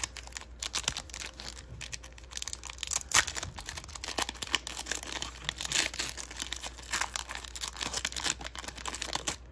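Foil wrapper of an Upper Deck Synergy hockey card pack crinkling and tearing as it is pulled open by hand, a dense run of quick irregular crackles.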